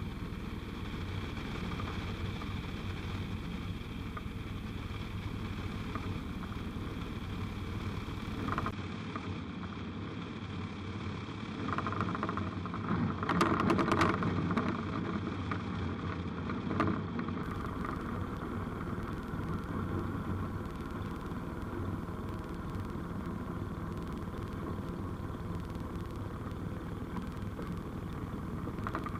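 Light aircraft's engine running steadily at low power, heard from the cockpit, as an UrbanAir Samba XXL lands and rolls out. About halfway through, a louder rumble with a few sharp knocks comes in as the wheels run on the tarmac runway after touchdown, then eases off as the aircraft slows.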